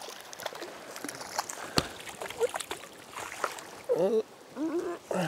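A small hooked brown trout splashing and thrashing at the water's surface as it is led into a landing net: a run of quick, irregular splashes.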